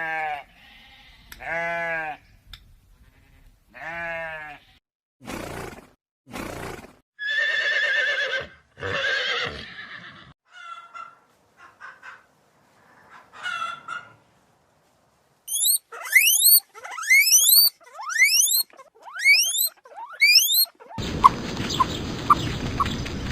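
Farm animal calls one after another: three calls falling in pitch, two short noisy bursts, a long wavering call, a few short quiet calls, then a run of quick rising squeaks, and a steady noisy stretch near the end.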